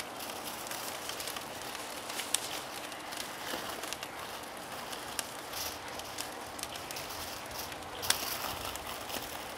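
Aluminium foil crinkling and rustling as gloved hands fold it around a rack of ribs, with a few sharper crackles; the loudest comes about eight seconds in.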